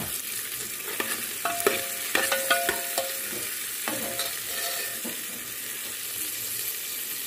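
Slices of smoked calabresa sausage sizzling steadily as they fry in oil in an aluminium pot. From about a second in to about four seconds in, a metal spoon clinks and scrapes against the pot, giving short ringing clangs.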